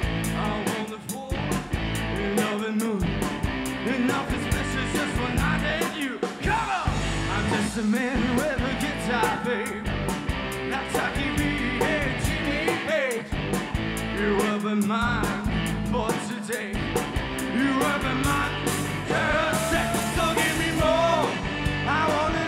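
Live rock band playing, with a singer over guitar, bass and drums.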